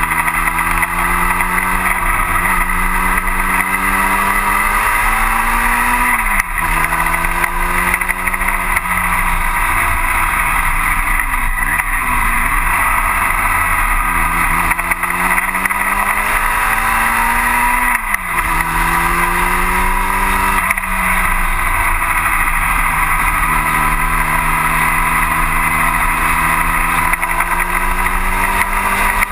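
Onboard sound of a 1960 Cooper T-52 Formula Junior's four-cylinder engine at racing speed. It revs up through the gears with a sudden drop in pitch at each upshift, about six seconds in and again around eighteen and twenty-one seconds. The revs fall away around the middle as the car slows for a corner, under a steady rush of wind and road noise.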